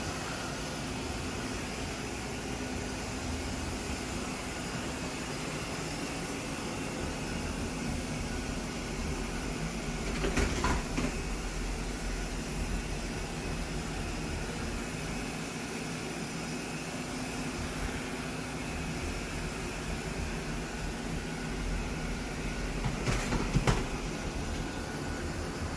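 Robot vacuum cleaner running with a steady whirring hum, with two brief louder rattles, one about ten seconds in and one near the end.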